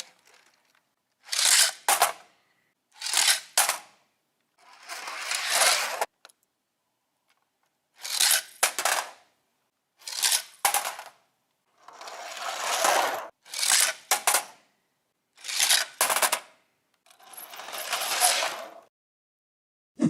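Small toy cars rolling down a plastic toy slide one after another: about nine rattling runs of a second or two each, with short silent gaps between them.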